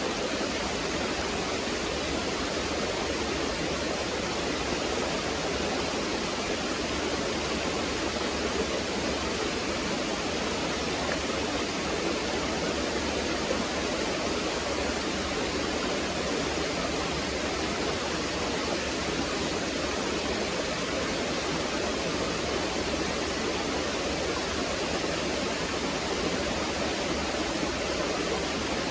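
Small waterfall and stream water running and gurgling, a steady even rush of water.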